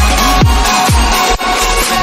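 Electronic dance music with a steady kick drum, about two deep beats a second, over held synth chords.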